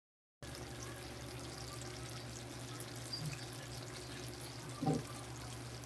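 Coconut-milk sauce simmering in a wok, a steady soft bubbling hiss with faint crackles over a low steady hum. One brief louder sound comes near the end.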